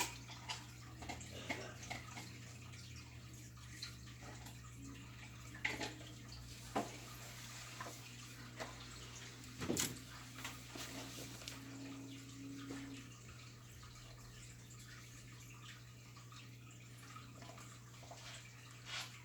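Ranchu goldfish feeding at the water surface: small splashes, drips and pops scattered throughout, the loudest a little under ten seconds in, over a steady low hum.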